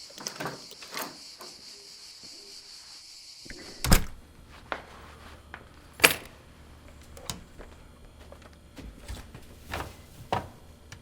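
A door shuts with a heavy thud about four seconds in, and a steady high hiss stops just before it. After it come a low hum and a few scattered sharp knocks and thuds in a small room.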